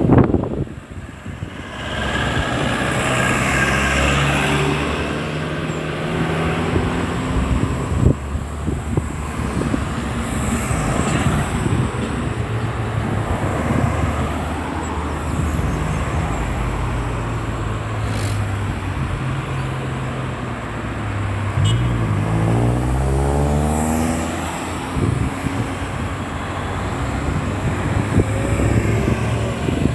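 Road traffic: cars and other vehicles passing steadily, the engine note rising and falling as each one goes by.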